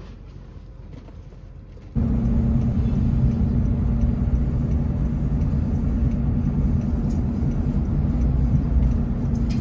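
Inside a moving car: a steady low rumble of road and engine noise. It is quieter at first and jumps up sharply about two seconds in.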